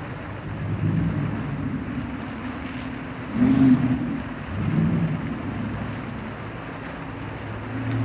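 Fountain jets splashing into a basin: a steady wash of falling water with a low hum underneath that swells and fades a few times, loudest about three and a half seconds in, as more jets rise.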